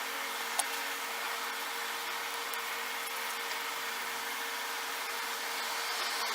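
Steady whirring hiss with a low hum from a running fan-like machine. A single sharp click comes about half a second in.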